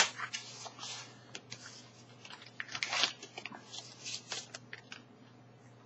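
A Red Dragon darts case being opened and the darts handled: a sharp snap at the start, then scattered small clicks, taps and rustling.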